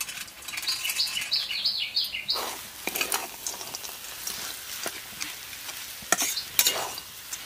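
Metal spatula stirring and scraping a mashed potato and peanut filling around a hot wok, over a light sizzle, in irregular strokes from about two seconds in. A bird chirps in quick repeated notes during the first two seconds.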